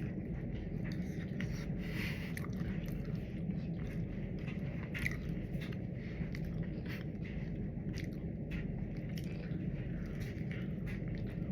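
Close-up eating sounds: chewing with many small, sharp mouth clicks, over a steady low hum.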